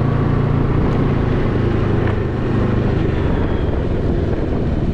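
Can-Am Ryker three-wheeled motorcycle's engine running steadily on the move, with a continuous rush of road noise over it.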